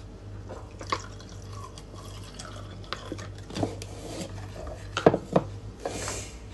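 Kitchen containers and utensils clicking and knocking on a stone countertop, with two sharp knocks about five seconds in, followed by a brief pouring hiss of liquid.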